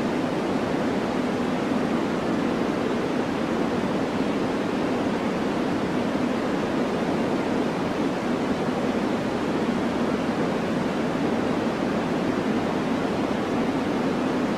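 Steady white-noise track for relaxation: an even, unbroken hiss, weighted towards the deep end, that holds the same level throughout.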